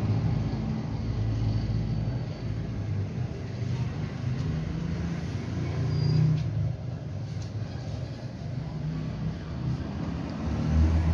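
Low, uneven mechanical rumble like a vehicle engine or road traffic, swelling and easing every second or two, under the soft sliding of a heavy flat iron over boski silk cloth.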